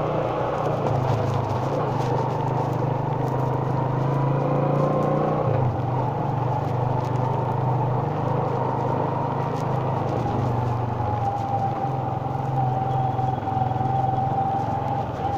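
Motorcycle engine running while riding, its pitch shifting a couple of times: once about five seconds in and again about ten seconds in.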